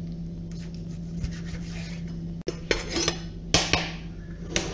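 A knife tapping lightly on a plastic cutting board, then, from about two and a half seconds in, a knife scraping diced raw chicken off the plastic board into a ceramic bowl in several clattering strokes, loudest about three and a half seconds in.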